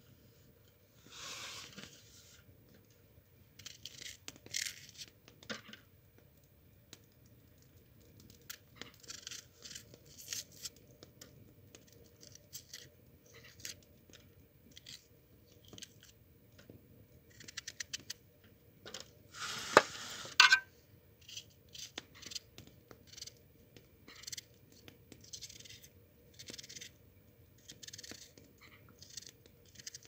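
Onion being peeled and cut by hand with a small knife: dry onion skin crackling and tearing and the blade scraping through the onion, in a string of short bursts, with a louder burst about two-thirds of the way through.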